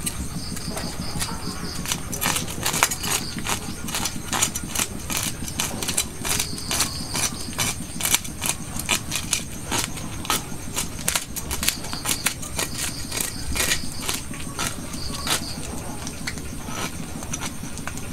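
Cleaver blade scraping the scales off a whole red fish on a wooden chopping block: rapid, irregular rasping scrapes, over a steady low hum and a faint, repeated high chirping.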